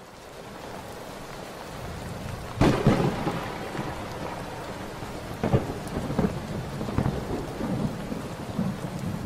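Steady rain with thunder, fading in at the start; a loud thunderclap about two and a half seconds in, then several smaller cracks and rumbles.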